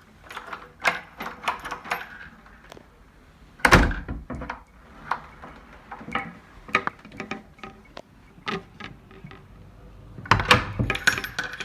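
A newly fitted nightlatch being tried out on a door: a run of sharp latch and key clicks, with a heavy door thud about four seconds in and another cluster of knocks near the end.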